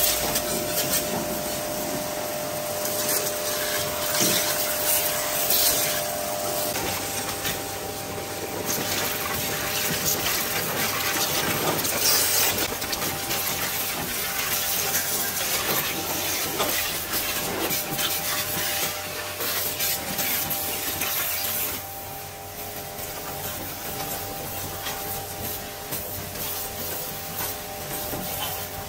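Pressure washer spraying a high-pressure water jet onto a tractor's metal bodywork, a steady hiss with a constant hum underneath. The spray gets quieter about three quarters of the way through.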